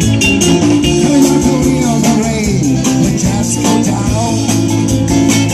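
Live band playing amplified rock music: electric guitars over a steady drum and cymbal beat, with a few sliding notes about halfway through.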